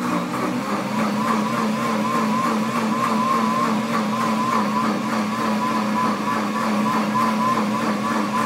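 Pampered Chef Deluxe Cooking Blender running its heated self-cleaning cycle on water and dish soap: a steady motor hum with a wavering whine above it.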